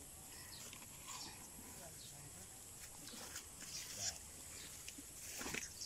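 Leaves and stems rustling in leafy undergrowth, a scatter of short, faint brushing noises, the loudest a little after five seconds in.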